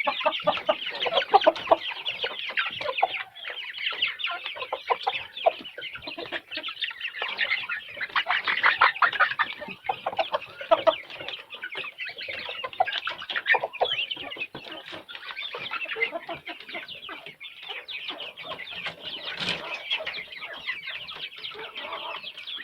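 A flock of chickens clucking and calling, many short overlapping calls with no pause.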